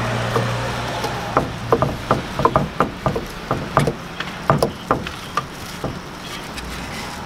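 A cleaver chopping sundae (Korean blood sausage) on a wooden cutting board: a quick, uneven run of knocks, about three a second, that stops about five and a half seconds in.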